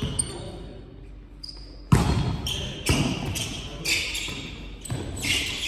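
A volleyball rally on an indoor court: the ball is hit sharply about two seconds in, then further hits and thuds come about once a second. Between them are short high squeaks from shoes on the court floor.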